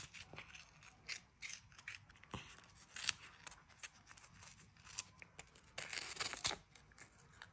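A domestic cat crunching a crisp chicken-and-krill treat held in a hand: faint, irregular crisp crunches, with a denser run of crunching near the end.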